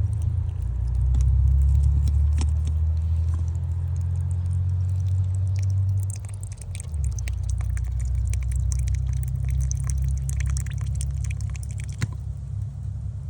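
Small clicks and scrapes of plastic parts being handled as the top of an irrigation valve is lifted off and worked on, busiest in the second half, over a steady low rumble.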